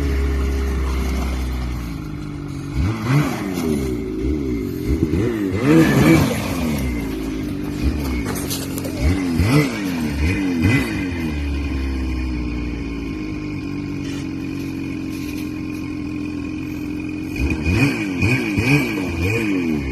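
A vehicle engine idling and revving up and down in several quick bursts, settling back to a steady idle between them.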